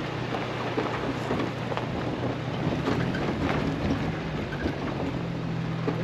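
A vehicle engine running at a steady low hum as it drives slowly over a rough dirt track. Many small crackles and knocks from the tyres and bodywork on the bumpy ground run over a noisy rushing background.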